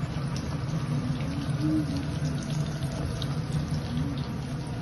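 Vegetable koftas deep-frying in hot oil in a pan: a steady sizzle with small scattered crackles and pops, over a low steady hum.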